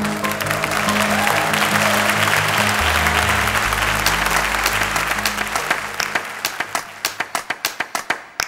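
Congregation applauding: the clapping swells to a full round of applause, then thins to scattered single claps that die out near the end, over soft background music.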